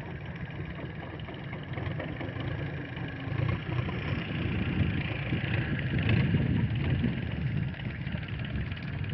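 A fishing boat's engine running steadily, growing louder in the middle and then easing back.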